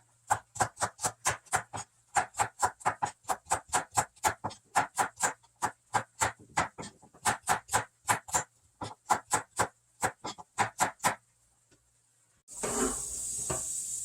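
Kitchen knife chopping on a cutting board in a steady rhythm of about three to four strokes a second, with brief pauses, stopping after about eleven seconds. Near the end comes a short burst of rushing noise lasting about two seconds.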